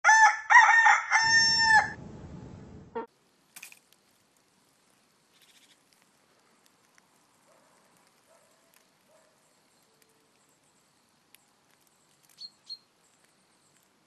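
A rooster crows once, a loud pitched call in several joined parts lasting about two seconds, with a rough low noise under its tail that cuts off about three seconds in. Faint bird chirps come near the end.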